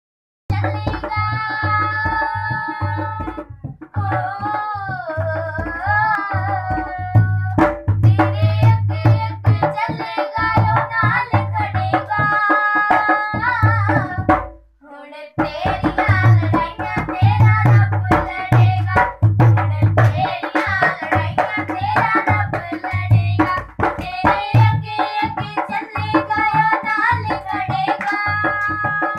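A worship song sung to tabla accompaniment, with the voice lines gliding over a steady beat of hand-drum strokes. The music breaks off for about a second near the middle, then starts again.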